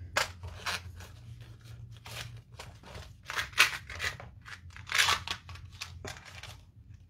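Hand rummaging through a box of craft embellishments: plastic packets, ribbons and card sheets rustling and crinkling in a string of short bursts, loudest about halfway through and again about five seconds in.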